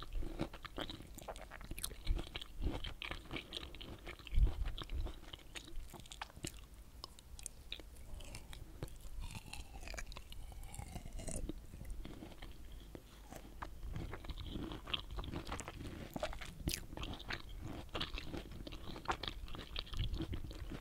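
Pomelo segments bitten and chewed close to the microphone: steady crunching chewing full of sharp little mouth clicks and smacks, with a couple of louder bites in the first few seconds.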